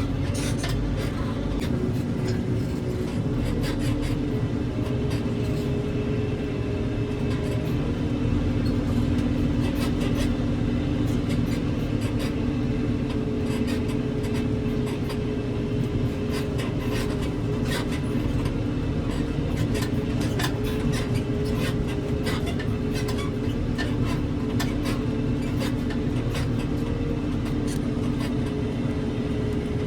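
Heavy diesel engine running steadily under load, a continuous drone whose pitch shifts slightly now and then, with scattered sharp clicks and knocks over it.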